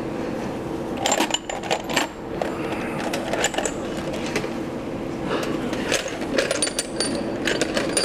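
Small machined metal parts clinking and rattling against each other and an aluminium tray as they are picked through, in irregular clusters of sharp clicks, over a steady low hum.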